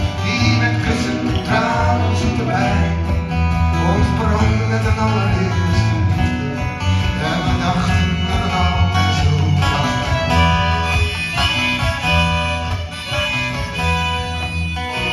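Live acoustic band playing an instrumental passage: several acoustic guitars with a violin.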